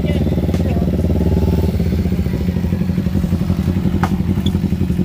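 Motorcycle engine idling close by with a steady, fast-pulsing low rumble.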